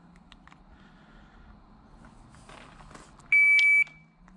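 Shot timer giving its start signal: one steady, high electronic beep lasting about half a second, near the end, the cue for the shooter to begin the drill.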